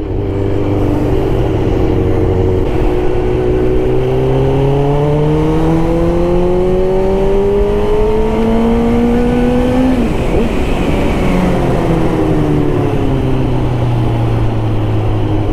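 Suzuki GSX-R1000 K2 inline-four engine pulling hard, its pitch rising steadily for about nine seconds, then dropping suddenly and running on at lower, slightly falling revs. A smooth rather than booming note.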